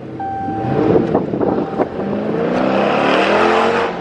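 Dodge Challenger R/T's 5.7 L HEMI V8 through a Borla ATAK cat-back exhaust, in sport mode, accelerating hard. From about halfway through, the exhaust note rises steadily in pitch and gets louder.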